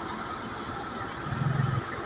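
Concrete pump's engine running steadily, with a louder low pulse lasting about half a second, beginning about a second and a quarter in.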